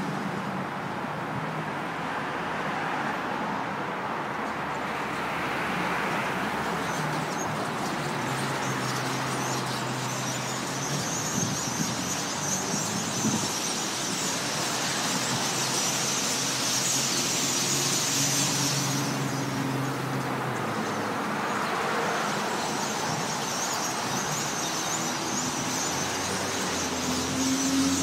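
Dense, steady chatter and squealing of calls from a huge flock of small blackbirds massed on and around power lines, with a low traffic hum underneath.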